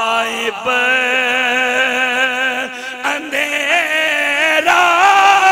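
A man's voice chanting a sermon passage in several long, drawn-out notes with a wavering pitch, through a microphone. The phrases break briefly and step higher toward the end.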